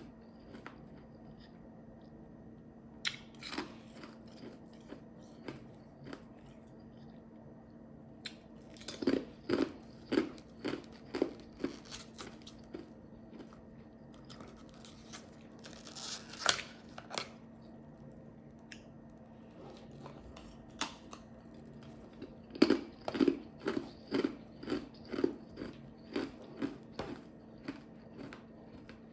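Ice chips being bitten and chewed: sharp, irregular crunches, coming in quick runs of crunching as a mouthful is chewed, with quieter gaps between mouthfuls.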